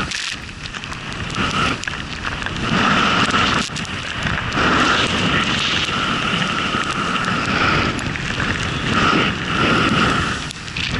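Wind rushing over an action camera's microphone during a fast powder descent, mixed with the hiss of snow spray. The rush swells and fades every second or two.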